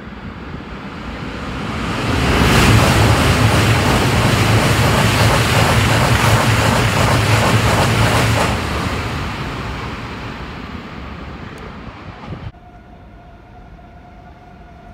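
Two coupled Eurostar e320 (Class 374) high-speed trainsets passing through without stopping: the rush of wheels on rail builds as they approach, stays loud and steady for about six seconds as the carriages go by, then fades away. Near the end it cuts off suddenly, leaving a faint steady tone over quiet background.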